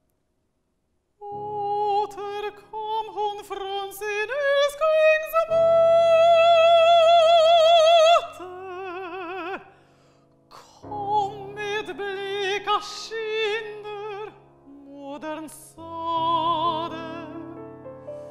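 A mezzo-soprano sings a lied with strong vibrato, accompanied on a Petrof grand piano. After about a second of silence the line begins and climbs to a long held high note from about five to eight seconds in, the loudest moment. It then falls away and picks up again with two brief pauses.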